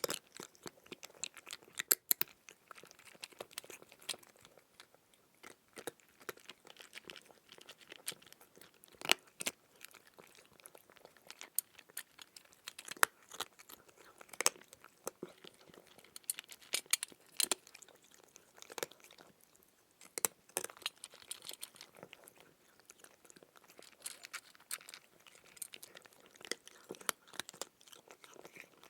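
Crunchy chewing and biting of food: irregular sharp crunches and crackles in quick clusters with short gaps between them.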